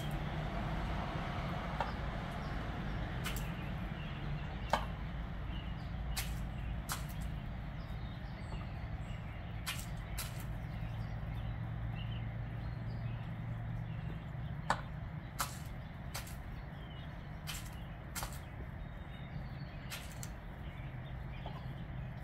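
Peacock pecking birdseed off concrete: sharp, irregular taps of its beak, a dozen or so spread unevenly, over a steady low rumble.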